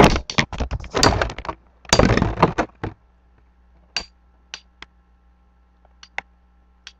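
Two metal-wheel Beyblade spinning tops clashing in a plastic stadium: a fast clatter of hits for about three seconds, then a few separate clicks as the battle winds down.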